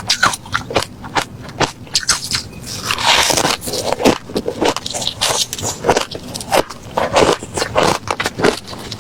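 Refrozen crushed ice being bitten and chewed close to the microphone: a rapid, irregular run of sharp crunches, with a longer grinding crunch about three seconds in.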